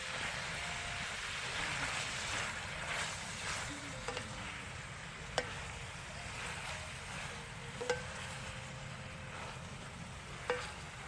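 Pork, fish roe and napa cabbage stir-frying in a pan: a steady sizzle with a utensil clinking sharply against the pan three times, a couple of seconds apart.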